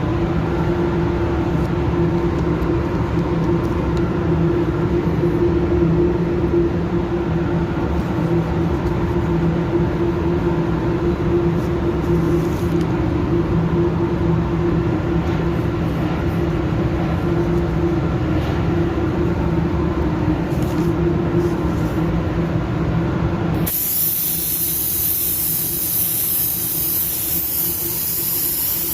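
A steady machine hum with a constant low drone. About 24 seconds in it cuts off suddenly and gives way to the steady high hiss of a paint spray gun spraying.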